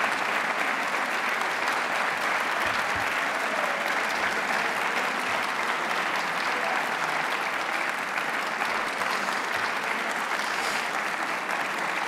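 A large audience applauding steadily, a continuous even clatter of many hands clapping.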